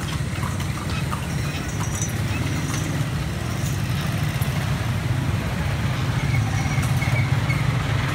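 Horse-drawn kalesa rolling along a street, a steady low rumble with a few faint knocks.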